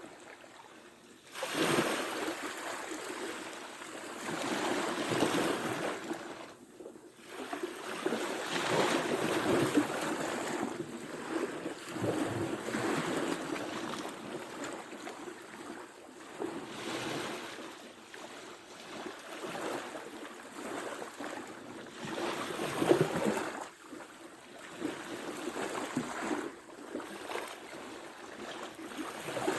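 Ocean surf washing ashore, the rush of the waves swelling and falling away every few seconds.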